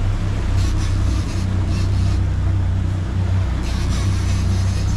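Quad outboard engines on a center-console boat running steadily under way: a low, even drone over the rush of water along the hull and wake, with a few brief louder swells of water noise.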